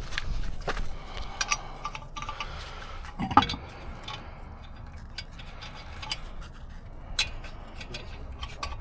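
Scattered light metallic clicks and clinks of tire-changing tools being handled, with a louder knock about three and a half seconds in and another near seven seconds.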